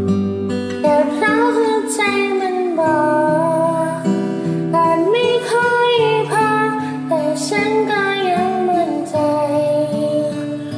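A woman singing a Thai ballad cover over guitar accompaniment, the voice coming in about a second in over sustained chords.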